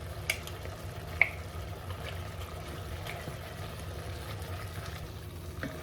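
A pot of chicken and potatoes simmering with liquid just added, over a low steady hum, with two sharp metal clinks of a utensil against the pot in the first second and a half.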